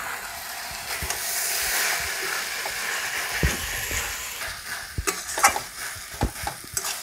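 Water spinach sizzling in a metal wok while a metal spatula stirs and turns it over medium heat. The frying hiss is strongest in the first half. Then the spatula scrapes and knocks against the pan several times.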